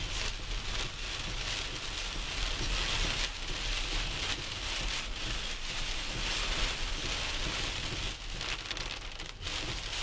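Heavy rain falling on a car's roof and windshield, heard from inside the cabin as a dense steady hiss, over a low steady rumble.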